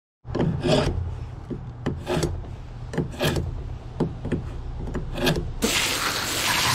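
A blade scraping repeatedly along a fish being cleaned, in short strokes that come mostly in pairs about once a second, over a low hum. A steady hiss comes in near the end.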